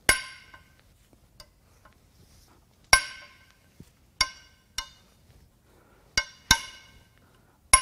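Sharp metal-on-metal clinks with a brief ringing tail, seven in all and irregularly spaced: a long steel breaker bar and Torx socket knocking onto and working the cylinder-head bolts of a BMW B38 three-cylinder engine.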